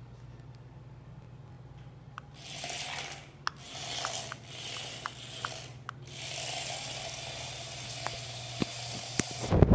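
Small battery-powered toy vehicle driving, its motor and wheels making stretches of hissing noise, the longest from about six seconds in, with small clicks between. A steady low hum lies beneath, and there is a loud knock at the very end.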